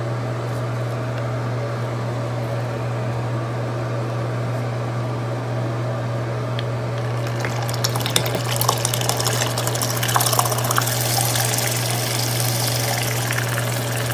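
Liberex electric makeup brush cleaner's spinner motor running with a steady hum; about halfway through, the spinning brush is dipped into a bowl of water and churns it with a splashing swish.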